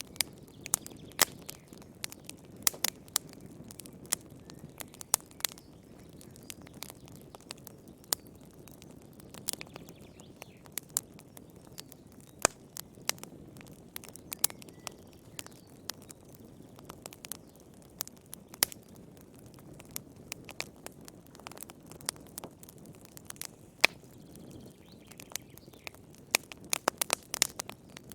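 Firewood burning in a fireplace: irregular sharp pops and crackles over a low steady rush of flame, with a quick run of pops near the end.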